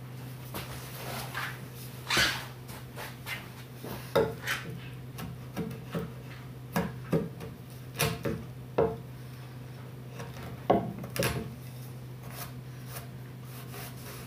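Wide timber-framing chisel paring the bottom of a housing in a timber beam by hand: a dozen or so short, irregular scraping and shaving strokes of steel across the wood grain.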